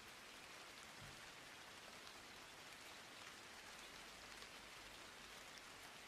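Near silence: a faint, steady hiss with no speech or music.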